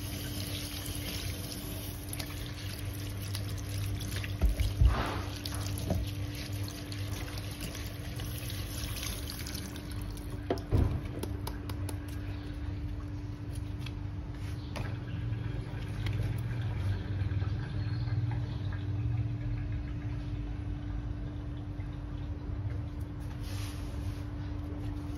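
Water splashing in a stainless steel sink as a pineapple is rubbed and turned under the tap, with a couple of knocks of the fruit against the sink, about five and eleven seconds in. A steady low hum runs underneath.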